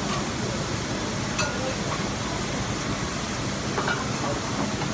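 Steady restaurant background hiss with faint voices, and a light click of a metal spoon against a glass dessert cup about a second and a half in.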